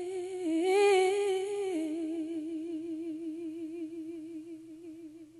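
A singer holding the long last note of a sung line with a steady vibrato. The note steps down in pitch a little under two seconds in and fades away near the end.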